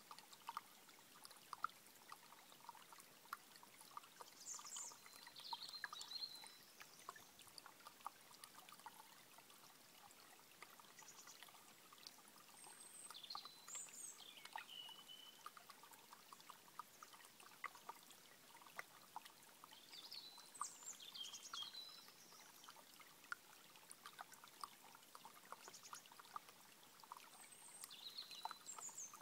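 A small, shallow stream trickling and plinking over stones, faint. A songbird sings short, high phrases of quick falling and rising notes every several seconds.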